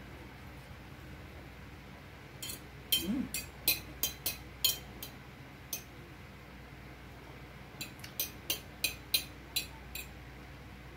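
Metal fork clinking against a plate while twirling spaghetti: two clusters of sharp clinks, the first from about two and a half to six seconds in, the second from about eight to ten seconds in.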